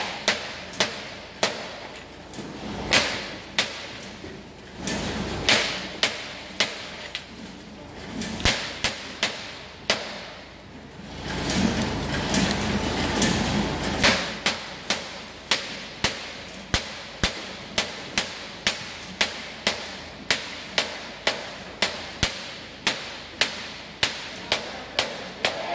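Repeated short, sharp knocks in a working packing shed. They are irregular at first, then settle about halfway through into a steady beat of about two a second.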